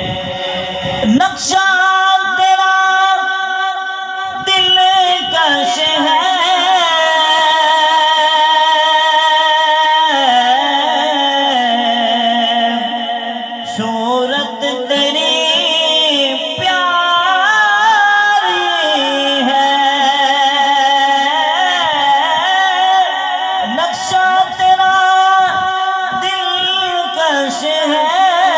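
A man singing an Urdu naat into a microphone over a PA system. He draws out long, wavering, melismatic notes without words between the sung lines.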